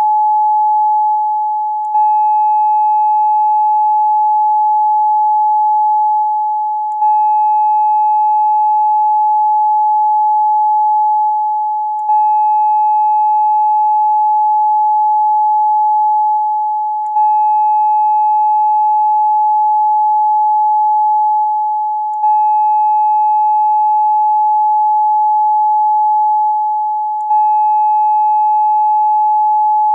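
A steady 852 Hz pure tone, looped: it restarts about every five seconds with a faint click, each loop fading slightly just before the next begins. Faint higher overtones sit above it.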